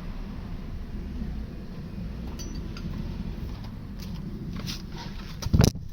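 Small metallic clinks and handling knocks from work under a car, then one short loud bump near the end.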